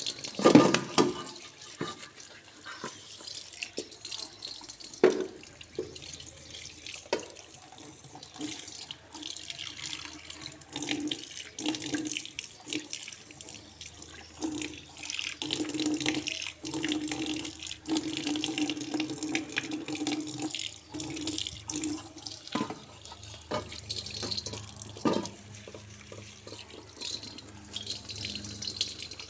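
Tap water running into a sink, with occasional knocks and clatter of something being handled in the water.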